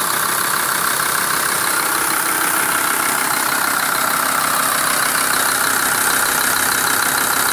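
Volkswagen LT 35's 2.5 TDI five-cylinder diesel engine running at a steady idle with a knock, which the owner thinks comes from the top of the engine near the valve cover, possibly an injector.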